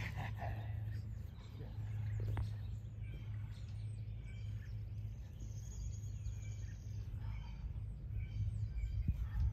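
Birds chirping and whistling over a steady low hum, with one longer high whistle about five seconds in.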